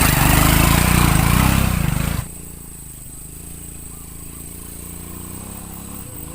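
An engine running: loud and rough for about the first two seconds, then dropping suddenly to a steadier, quieter drone.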